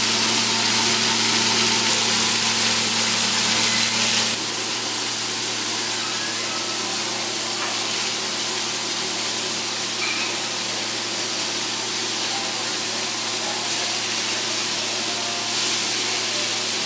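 Pieces of grouper sizzling in bacon grease on a hot flat-top griddle: a steady hiss over a steady low hum. The level drops a little about four seconds in.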